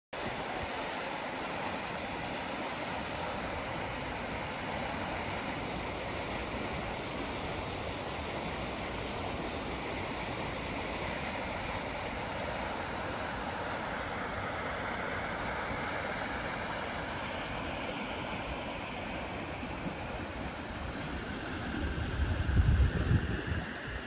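Shallow stream rushing over a stony bed, a steady hiss of running water. Near the end a brief low rumble rises over it.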